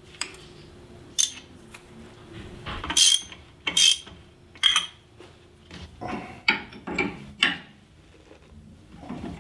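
Steel tools and car parts clinking and knocking against each other: single sharp metallic clanks a second or so apart, with a quicker cluster of them around six to seven and a half seconds in.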